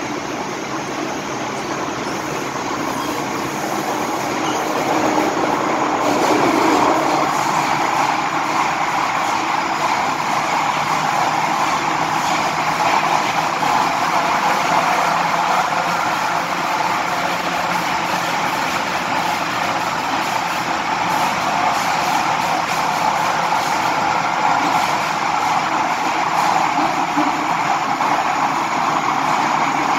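Running noise inside an MTR M-Train passenger car moving through a tunnel: a continuous rumble and hiss that grows louder over the first six seconds or so, then holds steady.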